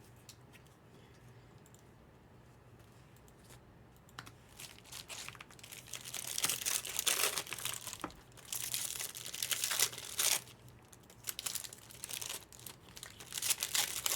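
Trading-card pack wrappers being torn open and crinkled, in irregular rustling bursts after about four seconds of near quiet.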